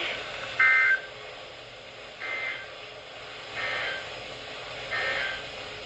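NOAA Weather Radio sending four short bursts of EAS/SAME data tones, two warbling pitches near 1.5 and 2 kHz, about a second and a half apart, the first the loudest, over steady radio hiss. The short bursts right after a message ends are the end-of-message code that closes the watch alert.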